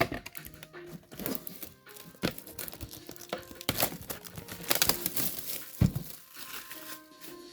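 Plastic wrapping crinkling and tearing in irregular crackles as sealed Pokémon card packaging is opened, over quiet background music.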